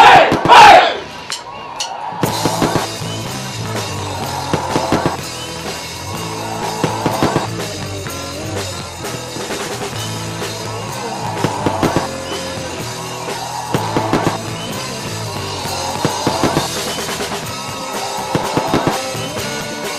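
Band music with a drum kit and a stepping bass line, starting about two seconds in, with louder drum hits roughly every two seconds. It is preceded by a couple of very loud bursts of sound in the first second.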